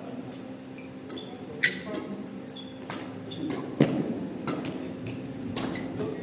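Badminton rackets striking a shuttlecock in a doubles rally: a series of sharp hits roughly a second apart, the loudest about two-thirds of the way through.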